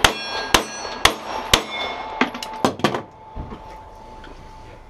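A fast string of pistol shots, about two a second, with steel target plates ringing as they are hit. The shots thin out about three seconds in, leaving one steady ring that hangs on.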